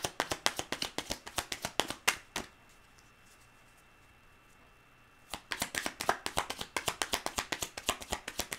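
A deck of tarot cards being hand-shuffled, with the cards slapping together about six times a second. The shuffling stops for about three seconds midway, then starts again.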